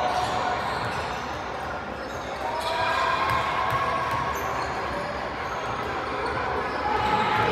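Basketballs bouncing on a hardwood gym floor, the knocks echoing through a large hall over a low background murmur.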